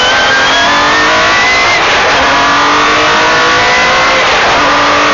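Metro 6R4 rally car's 3.0-litre V6 engine heard from inside the cabin under hard acceleration. Its pitch climbs, drops sharply at a gear change about two seconds in, climbs again, and dips once more near the end.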